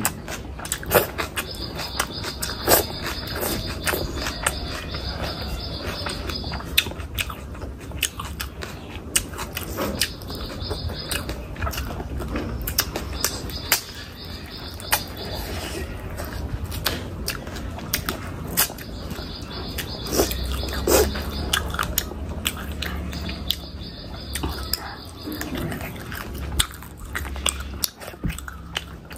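Close-miked eating sounds: chewing, biting and wet mouth smacks, with many short clicks scattered irregularly throughout.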